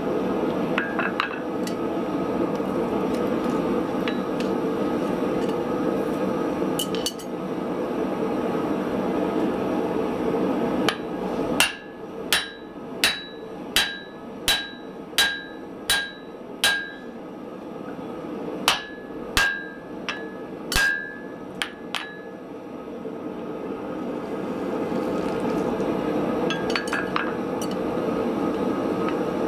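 A hand hammer striking a punch driven into a red-hot steel hammer-head blank to punch the eye. The blows come in two runs, about one and a half a second with a short break between, and each leaves a bright metallic ring. Underneath is a steady rushing noise, with a few light clinks of tools.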